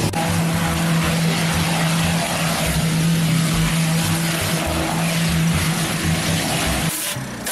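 An engine droning steadily under a broad rushing hiss from a car burning in full flame. Both drop away about seven seconds in.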